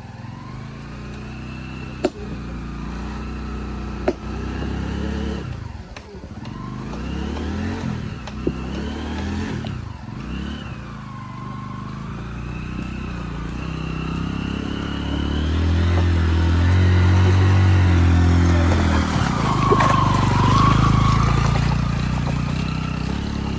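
TVS Apache RTR 200's single-cylinder engine running as the motorcycle is ridden slowly over a muddy, rutted track, the revs rising and falling and climbing louder in the second half. A few sharp knocks come through along the way.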